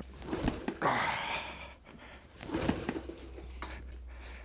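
Two attempts at kick-starting a Honda CT110 postie bike, each a noisy burst about a second long, with the single-cylinder engine turning over but not firing.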